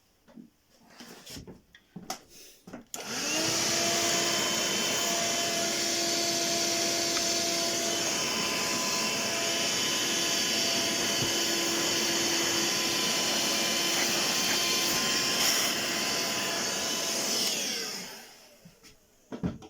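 A vacuum cleaner switched on about three seconds in, its motor whine rising as it spins up, then running steadily as it sucks up drilling dust from a freshly drilled hole in a wooden baseboard, before it is switched off and winds down near the end. A few light handling clicks come before it starts.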